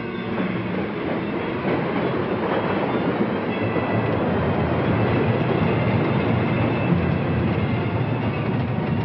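Vintage cartoon sound effect of a speeding train: a dense, steady rushing rumble that grows louder about two seconds in.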